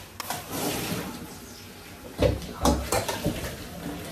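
Kitchen handling noises: a soft hiss in the first second or so, then three short knocks and thumps of containers or utensils set down on the counter.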